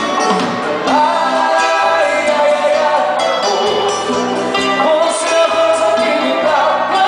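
Live band playing with a singer, a steady beat and guitar-led accompaniment.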